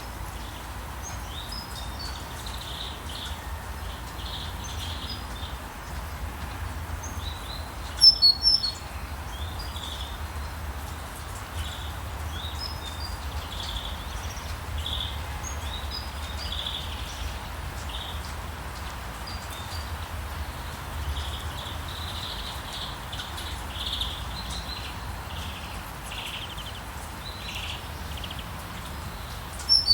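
Birds chirping and singing in short calls again and again over a steady hiss of rain, with a louder burst of sharp chirps about eight seconds in.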